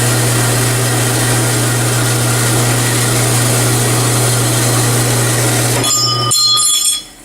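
Horizontal metal-cutting bandsaw running with coolant, its blade slowly feeding through a steel bar: a steady motor hum under a hissing cutting noise. About six seconds in comes a short metallic ringing as the cut finishes, and then the saw's sound cuts off suddenly.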